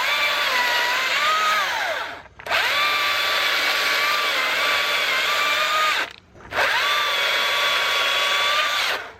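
STIHL battery-powered electric chainsaw with a 16-inch bar, its motor and chain whining in three runs with two brief trigger releases between them. The pitch sags and recovers within each run as the chain works.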